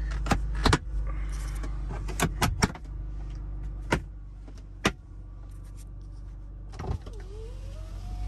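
1999 BMW Z3's electric power window motor starting up about seven seconds in with a rising whine that then holds steady, over the steady hum of the idling engine. Several sharp clicks come before it.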